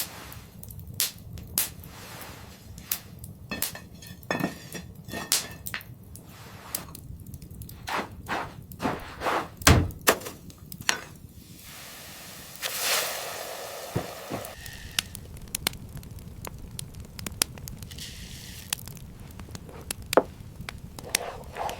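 Irregular sharp knocks and thuds, with one heavy thud about ten seconds in and a brief rushing noise a few seconds later.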